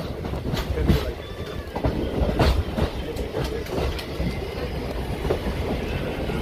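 DEMU passenger train running along the track, heard from its open doorway: a steady rumble with irregular clicks and clacks of the wheels over rail joints.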